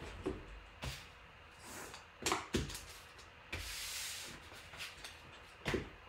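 Scattered handling noises: a few short knocks and clicks at irregular intervals, with a brief hiss a little after three and a half seconds.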